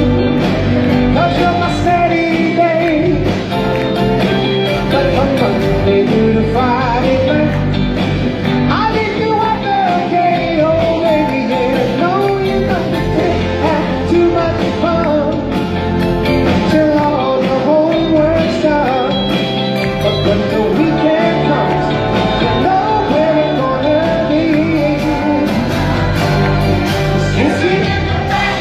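Live vocal group singing a soul-pop song with a band: lead vocal and harmony voices over electric guitar, keyboards, bass and drums, heard from the auditorium.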